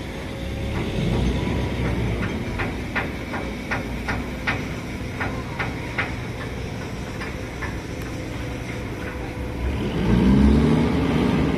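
Boat engine running at low speed with a steady rumble, over a run of sharp, irregular metallic clicks or knocks, two or three a second, that die away after several seconds. Near the end the sound swells louder, rising and then falling in pitch.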